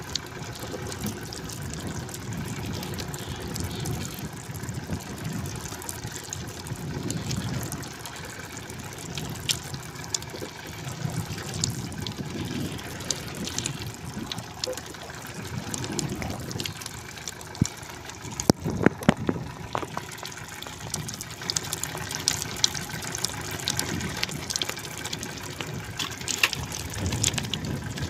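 Choppy sea water sloshing and slapping against the hull of a small wooden boat, swelling and easing every couple of seconds. A few sharp knocks come just past the two-thirds point.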